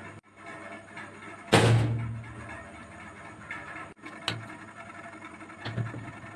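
Metal parts set down on a sheet-metal workbench: one loud clank about one and a half seconds in that rings on for about a second, then two lighter clinks as a spark plug is placed on a steel bearing.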